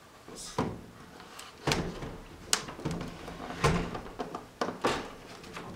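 Milgard window sash being worked back into its frame: several sharp knocks and clacks with sliding and scraping as the sash moves in its side tracks.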